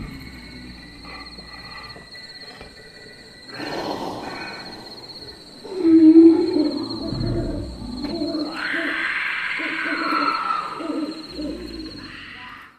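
Spooky night-time sound effects: hooting calls repeating over a steady high chirring, with a louder low swell about six seconds in.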